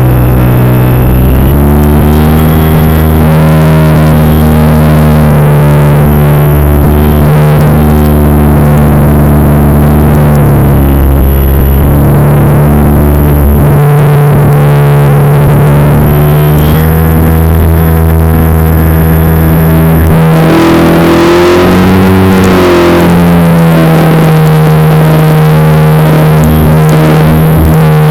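RC plane's motor and propeller droning loudly and steadily, picked up by a camera inside the plane; the pitch shifts with the throttle a couple of times, with a wavering rise and fall around 20 to 23 seconds in.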